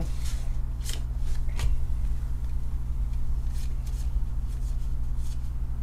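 Pokémon trading cards slid one behind another in the hand, giving a few soft, short swishes, over a steady low hum.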